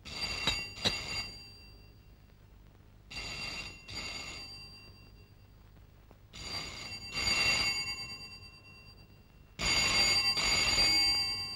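Telephone ringing: four rings, each lasting one to two seconds, about three seconds apart.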